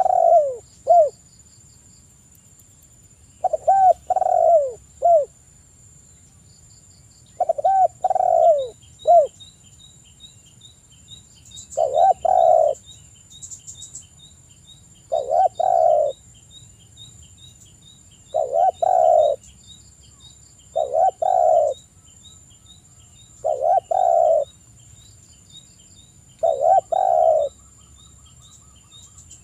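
Spotted dove cooing, one low phrase about every three seconds, nine phrases in all. The first few break into separate notes; the later ones run together.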